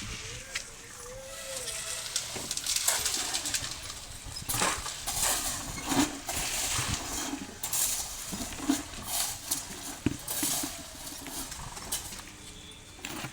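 Irregular scraping, tapping and knocking of hand tools and materials at construction work, a string of short rasping strokes with sharp clicks between them.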